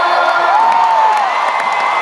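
Large concert crowd cheering and whooping as a song ends, with whistles gliding over the noise; a long high whistle starts a little past halfway.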